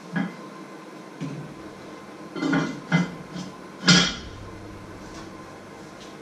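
Cooking pots, pans and lids knocking and clattering on a stovetop: a handful of short clanks spread through, the loudest about four seconds in.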